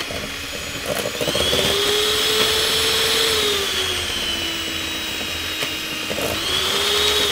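Electric hand mixer running, its beaters working butter that is too cold to beat well. The motor whine climbs about a second in, sags slowly through the middle, and picks up again near the end.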